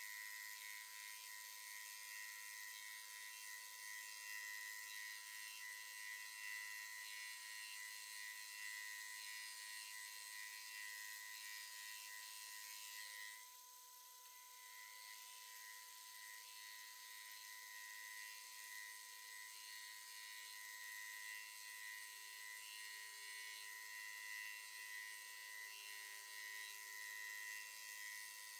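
TOS milling machine running while skimming a Cummins 6.7 cylinder head, heard sped up ten times: a faint, steady high whine over hiss. It dips and turns quieter about halfway through.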